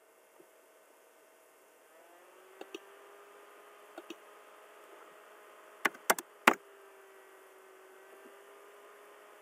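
Computer mouse and keyboard clicks while drafting on a computer: two soft double clicks a couple of seconds apart, then a quick run of four sharper clicks a little past the middle. A faint steady hum sits underneath from about two seconds in.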